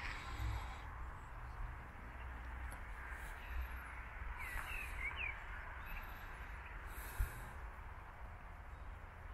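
Outdoor ambience: wind rumbling on the microphone, with birds chirping a few times around the middle. A brief low bump about three-quarters of the way through.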